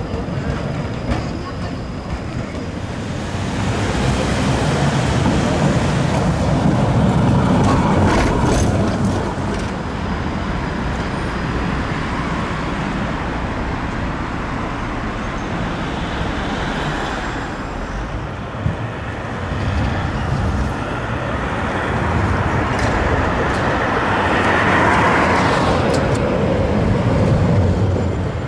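Trams and road traffic passing along a city street. The noise swells twice as vehicles go by, a few seconds in and again near the end.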